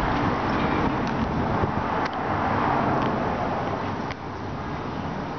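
Steady rushing outdoor background noise with a few faint clicks spaced about a second apart.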